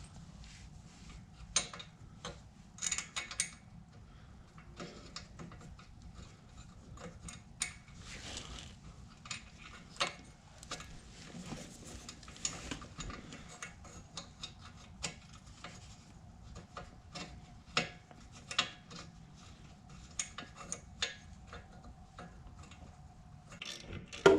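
Scattered light metallic clicks, taps and clinks of hand tools and exhaust parts being handled and fitted on a small ATV engine, over a faint steady low hum.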